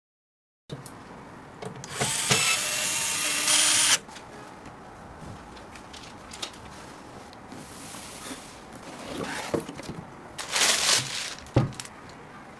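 A small power tool, such as an electric screwdriver, whirring for about two seconds, followed by quieter handling noises, two short hissy bursts and a sharp click.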